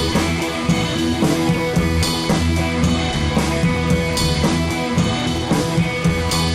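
Background rock music with drums, bass and guitar playing a steady beat.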